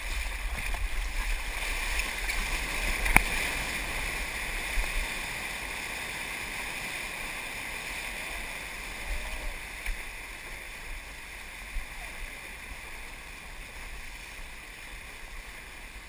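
Water rushing and splashing past a surfboard riding a wave, with wind rumbling on the microphone; it slowly fades toward the end. A single sharp knock about three seconds in.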